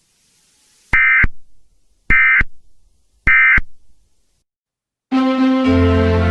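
Emergency Alert System SAME data tones: three short identical warbling bursts about a second apart, the End of Message signal that closes an alert. Music starts near the end.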